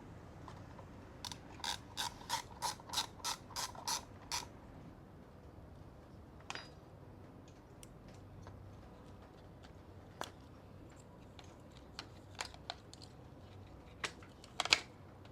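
A run of about ten sharp mechanical clicks at roughly three a second, like a ratchet being worked, then scattered single clicks and knocks, the loudest near the end.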